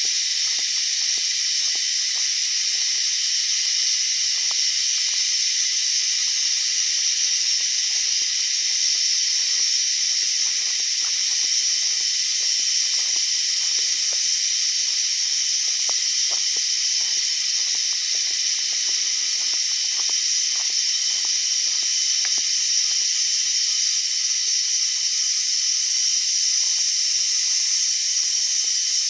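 Cicadas singing: a loud, steady, high-pitched buzz that never breaks.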